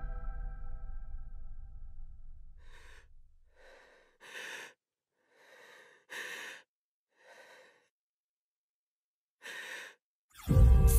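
A ringing musical chord fades away, then an exhausted fighter breathes heavily: about seven ragged, breathy gasps with silent gaps between them. Near the end loud music comes in suddenly.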